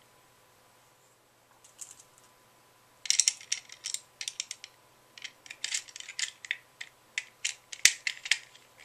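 Small screwdriver doing up the screw in the base of a plastic Trackmaster toy truck: quick irregular clicks and scrapes of the metal tip turning in the screw head against the plastic. It starts about three seconds in, with one sharper click near the end.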